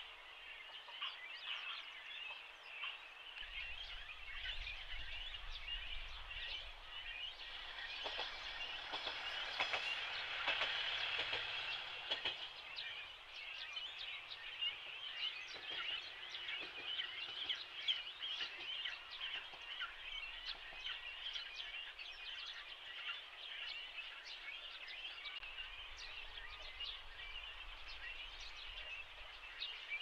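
Dense, continuous chorus of many short, high animal calls, swelling louder for a few seconds about a third of the way in, with a faint low rumble underneath at times.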